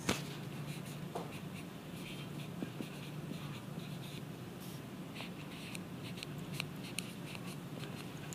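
A stylus tapping and scratching on a tablet screen as handwriting is written: a string of light, irregular ticks, the sharpest one right at the start, over a steady low hum.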